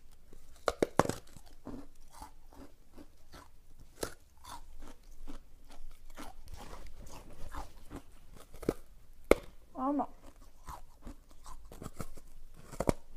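A large block of dyed ice being bitten and crunched: repeated sharp cracks as pieces snap off between the teeth, with chewing of the ice chunks in between. The loudest cracks come about a second in and about nine seconds in.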